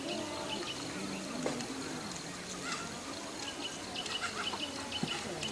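Faint outdoor ambience of small birds chirping in short, repeated high chirps, over a low wavering sound.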